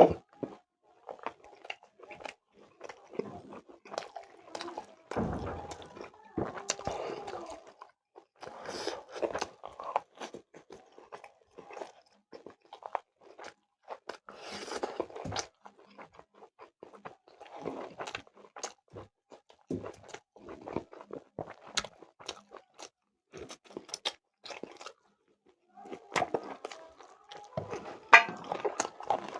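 Close-up eating sounds: a person chewing and crunching food with irregular bites and mouth clicks.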